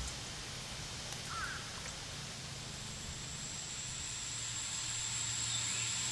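Quiet outdoor riverside ambience: an even hiss, with a steady high-pitched insect buzz that comes in after a couple of seconds and grows a little louder, and a faint chirp about a second in.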